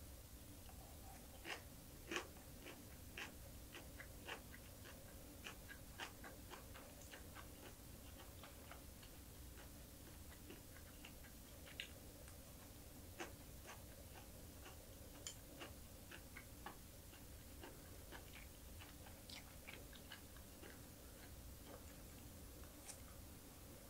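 Close-up chewing of green chili peppers and dried baby anchovies: a scatter of small, irregular crunches, the loudest about two seconds in.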